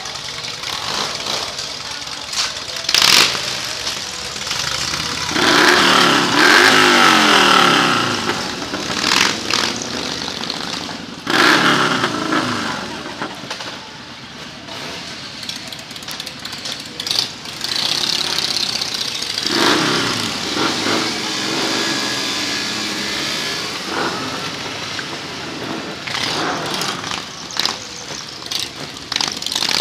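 Several motorcycle engines running at a slow parade pace. The engines rev up and fall away several times, loudest about five to eight seconds in, again around eleven seconds, and around twenty seconds.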